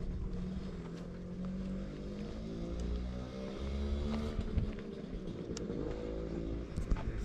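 A motor running, its pitch drifting slowly up and down.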